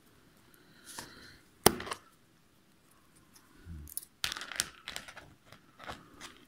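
A few sharp clicks and crackles from a thin green twig being handled and worked into a hair rig on a tabletop. The sharpest click comes about a second and a half in, and a cluster of crackles follows about four seconds in.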